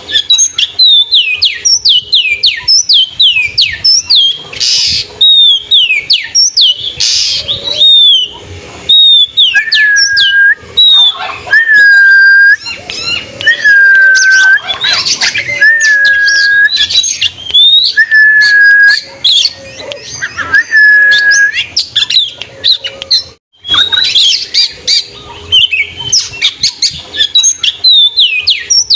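Oriental magpie-robin (kacer) singing loudly: a quick run of sharp downward-slurred notes, then a string of six drawn-out level whistles about two seconds apart, then fast notes again after a brief break near the end. It is the kind of challenging song played to rouse rival males.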